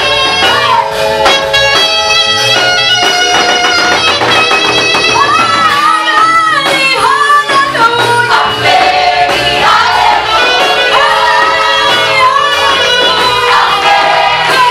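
Gospel song: a passage of held instrumental chords, then voices singing the melody from about five seconds in, over the band.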